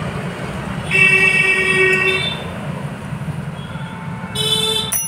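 A vehicle horn sounds for about a second, then a shorter, brighter toot near the end, over a steady low background rumble.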